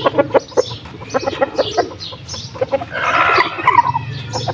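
Chickens clucking in short repeated calls, with a louder, harsher squawk lasting about a second around three seconds in.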